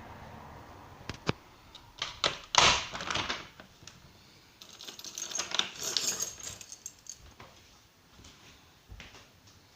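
Irregular sharp clicks and knocks, the loudest about two and a half seconds in, followed by a stretch of rattling clatter between about five and seven seconds in.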